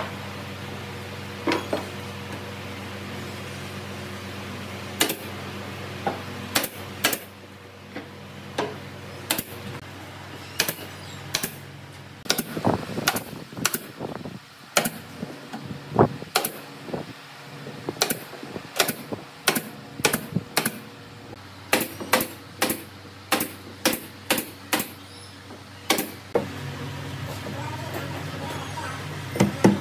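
Pneumatic nail gun firing single sharp shots again and again at uneven intervals, fastening pine floorboards into a wooden boat hull, over a steady low hum.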